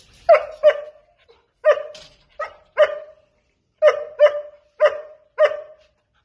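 German Shepherd barking: about ten short barks in pairs and short runs with brief pauses. It is the excited barking that the owner puts down to the dogs expecting food.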